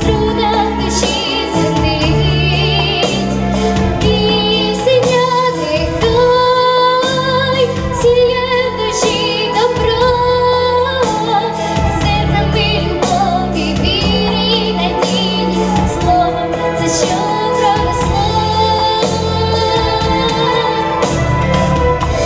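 A girl singing a Ukrainian song solo into a microphone, her held notes wavering with vibrato, over an instrumental backing with a bass line and a steady beat.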